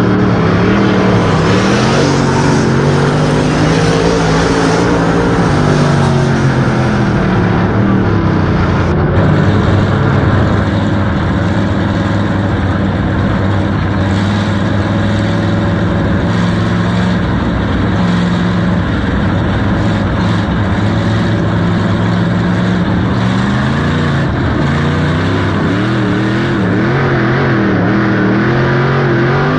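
Dirt-track race car's engine heard from inside the car, running at part throttle on the pace laps before the start, its revs rising and falling through the turns. It picks up pace near the end as the green flag drops.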